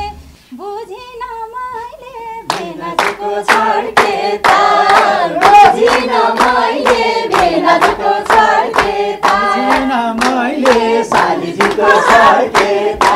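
A group of people singing together while clapping in time, about two claps a second. One voice sings alone at first; the other voices and the clapping join in about two and a half seconds in.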